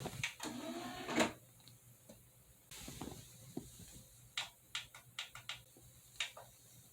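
A string of sharp clicks and taps, with a faint hiss starting about three seconds in.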